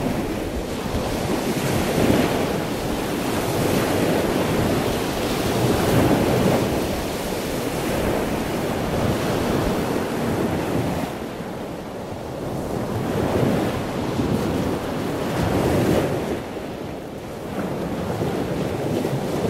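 Ocean surf breaking on a sandy beach, a steady wash of waves that swells and fades every few seconds, with wind buffeting the microphone.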